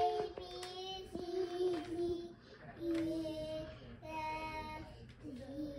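A young girl singing slowly in long held notes that step up and down in pitch, with short breaks between them.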